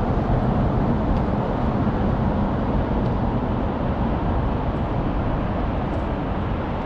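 Steady roar of nearby road traffic, an even wash of noise with no single vehicle standing out.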